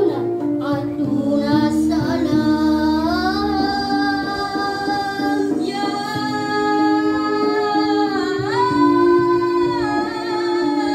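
A song: one voice sings long held notes, sliding up early on and dipping about eight seconds in, over a steady instrumental accompaniment.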